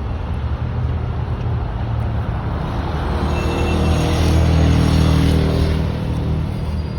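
Steady low road-traffic rumble, with a heavy motor vehicle going by that swells loudest about four to five seconds in and then fades.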